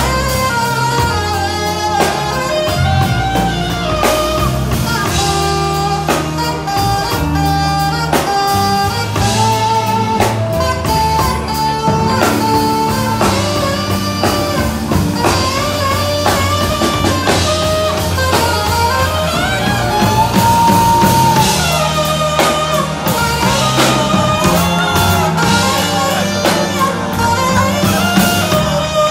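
Band music in a blues-rock style: a lead guitar melody over bass and drums.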